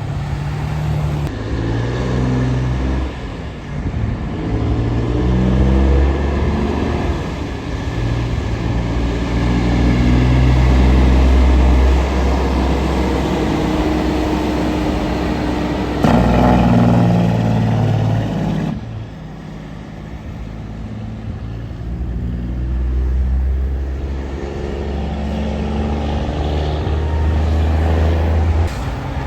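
Heavy trucks' diesel engines pulling out and passing, the engine note stepping up and down in pitch. It swells suddenly about halfway through and eases off a few seconds later.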